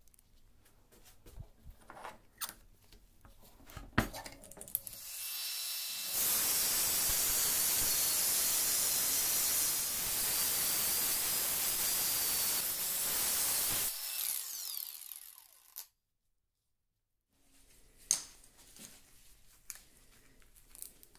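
Light clicks and knocks of metal tool parts being handled, then an angle grinder spins up and cuts metal for about eight seconds, a high steady whine over loud hiss, before fading out; after a brief silence, more light handling clicks.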